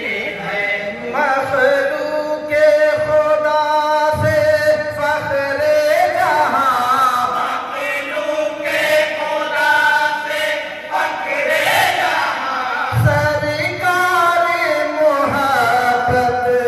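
Men's voices singing a naat together through a microphone, in long drawn-out melodic lines that waver and glide between held notes.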